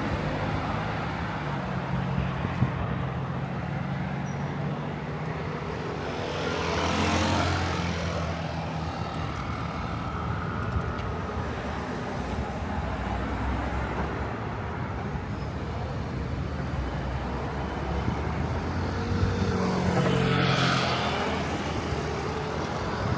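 Road traffic: a steady low engine hum, with two vehicles passing close, one about seven seconds in and another near the end.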